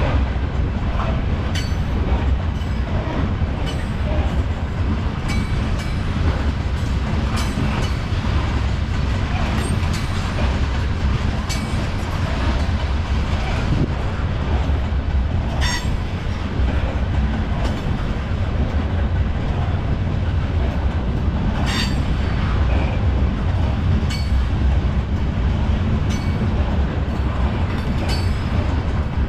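Freight train of tank cars rolling past at speed: a steady heavy rumble of wheels on rail, with sharp clicks every second or two as wheels cross rail joints.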